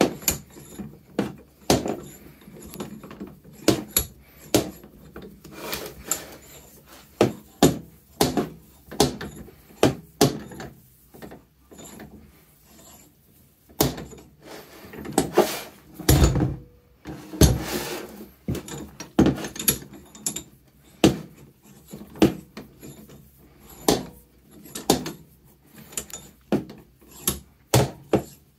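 Wilton 9300 bullet bench vise being cranked by hand: the steel sliding T-handle knocks and clacks against the cast-iron screw hub as the jaws close and open again. A run of sharp metal clunks, about one or two a second, with a short pause about halfway through.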